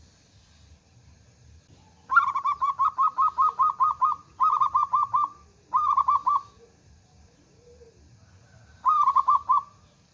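Zebra dove (perkutut) cooing in four phrases of quick, staccato notes. The first phrase is the longest, about two seconds of a dozen notes. Three shorter phrases of five or six notes follow, the last near the end.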